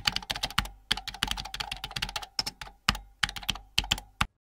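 Computer keyboard typing sound effect: a rapid, irregular run of key clicks laid under text being typed out on screen, stopping abruptly near the end.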